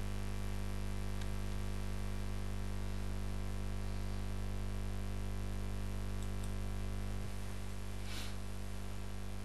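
Steady low electrical hum with hiss, the background noise of the recording setup, with a faint click about a second in and a brief soft noise near the end.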